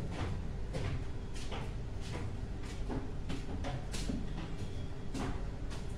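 Scraping and light knocks from hands working in a stainless steel pot, irregular strokes about every half second, over a faint steady hum.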